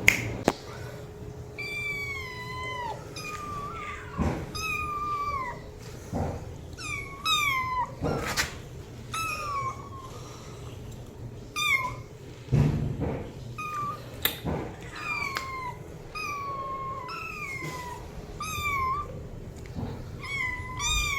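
Cat meowing over and over, about twenty short high-pitched meows roughly a second apart, many sliding down in pitch at the end. A few soft knocks fall between the calls, the loudest about two-thirds of the way through.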